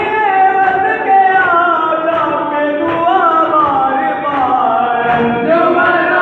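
Men's voices chanting a Muharram lament (noha) together in a slow, gliding melody, with faint chest-beating (matam) keeping time underneath.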